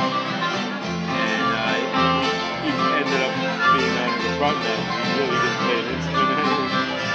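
Bluegrass-country band playing an instrumental break live: bowed fiddle, strummed acoustic guitars and harmonica over a bass line.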